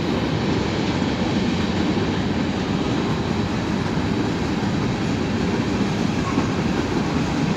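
Norfolk Southern freight train of hopper cars rolling past: a steady, loud rumble and rattle of steel wheels on the rails.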